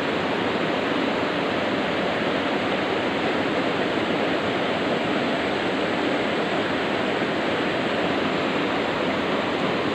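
Shallow rocky stream rushing steadily over and between boulders.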